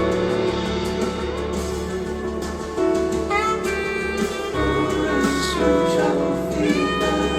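Instrumental jazz-pop music played back over Morel Sopran 934 hi-fi loudspeakers and picked up in the room: held melodic notes, some sliding up in pitch, over a steady low bass line, with no singing.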